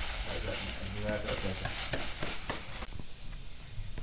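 Sandpaper rubbing back and forth on hardened JB Weld epoxy filler on an outboard motor's aluminum skeg, a scratchy hiss of sanding that thins out about three seconds in.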